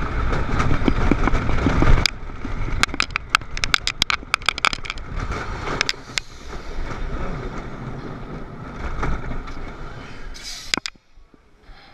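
Wooden roller coaster train running along its track with a heavy rumble that drops suddenly about two seconds in as it hits the final brakes. A quick string of sharp clacks follows, then a lower rolling sound that fades as the train slows to a stop, with one last click near the end.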